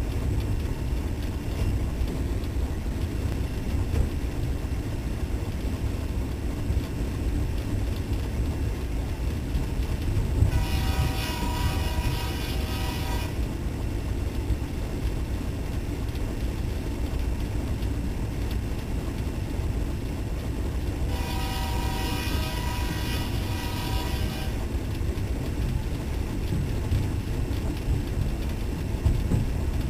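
Diesel locomotive engine running steadily with a deep rumble. The locomotive's air horn sounds twice, each blast about three seconds long, about ten and twenty-one seconds in.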